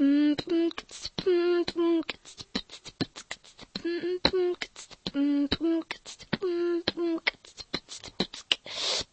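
A girl beatboxing: a steady rhythm of sharp mouth clicks and pops, with short hummed notes in pairs laid over the beat. It ends with a brief hiss.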